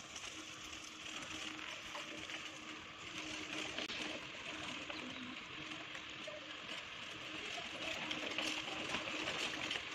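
Outdoor street ambience: a steady hiss with faint, intermittent bird calls.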